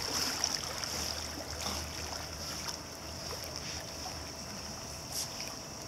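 Pool water sloshing and lapping as a Labrador retriever paddles, over a steady high hiss and a low hum.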